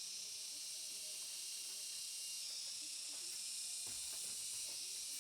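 Steady, high-pitched insect chorus, like cicadas buzzing in a tropical forest, with a few faint knocks about four seconds in.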